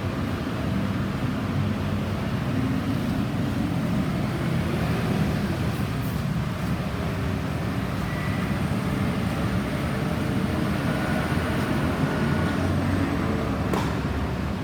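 Steady low rumble of road traffic and vehicle noise.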